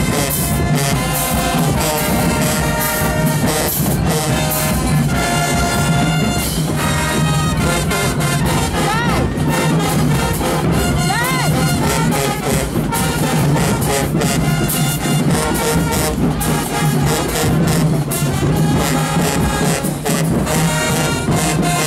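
A high school marching band playing live, loud and without a break: a brass section of sousaphones, trumpets and trombones, with steady hits through it.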